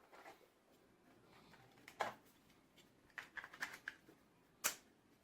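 Faint handling noises from a handheld walkie-talkie: a click about two seconds in, a quick run of light ticks a second later, and a sharper click near the end.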